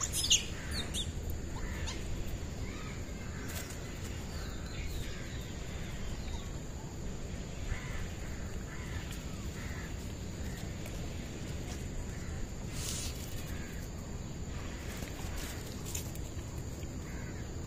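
Outdoor background: a steady low rumble with faint, scattered animal calls and a few brief clicks.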